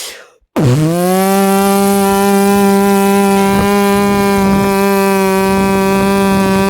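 Beatboxer's vocal imitation of an Indian mixer grinder: a buzzing motor-like hum that spins up quickly about half a second in, then holds a steady pitch.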